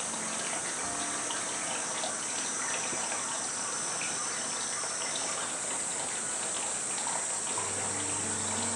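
Steady rush of running water with a high hiss over it. A few low, steady tones come in near the end.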